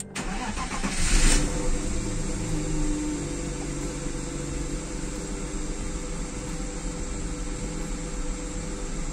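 BMW M50 straight-six engine cranking and catching about a second in with a brief flare of revs, then settling into a steady idle. This is the first start after the engine's VANOS unit was taken apart and refitted.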